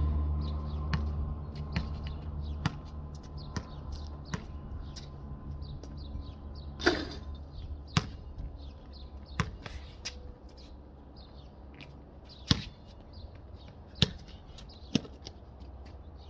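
Basketball bouncing on a concrete court, dribbled at about one bounce a second at first, then a few louder, scattered bounces and hits, one of them ringing about seven seconds in. Birds chirp throughout.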